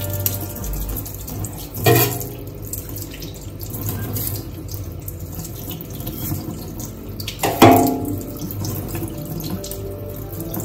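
Kitchen tap running steadily into a stainless steel sink as a yam is rinsed under the stream. Two sharp knocks stand out, about two seconds in and again about three quarters of the way through, the second the louder.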